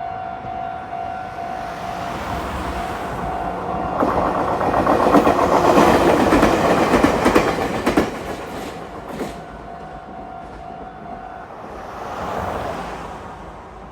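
Japanese level-crossing alarm ringing steadily as a Meitetsu Bisai Line train crosses, its wheels clattering over the rail joints loudest from about four to eight seconds in. The alarm stops about eleven seconds in, and a brief swell of noise follows near the end.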